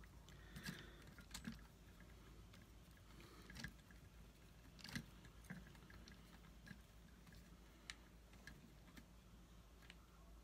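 Faint, irregular clicks and taps of small metal and plastic parts being handled and fitted at an RC truck's axle hub, a few sharper than the rest.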